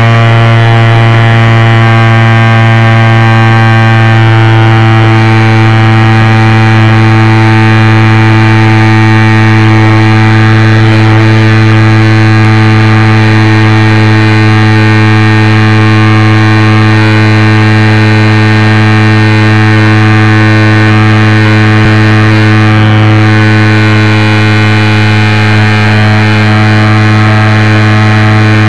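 Model airplane's motor and propeller running at a steady pitch, heard very close and loud from a camera mounted on the plane itself.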